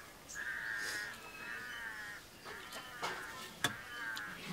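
A crow cawing over and over, each call about half a second long. There is a single sharp knock about three and a half seconds in.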